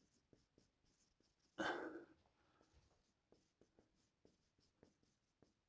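Faint marker writing on a whiteboard: a run of soft ticks and scratches as letters are drawn, with one brief louder noise about a second and a half in.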